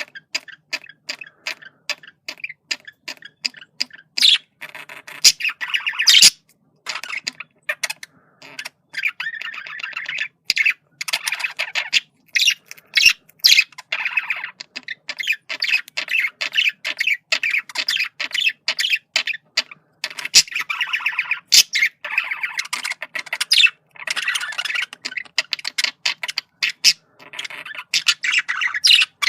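Male budgerigar chattering: a steady stream of rapid chirps, clicks and warbles with short pauses, now and then rising to a sharper squawk.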